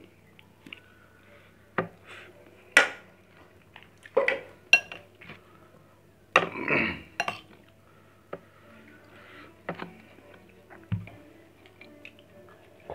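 A metal spoon clinking and scraping against a rice pot and ceramic plates and bowls as food is served: sharp clinks every second or so, with a longer scrape about six and a half seconds in.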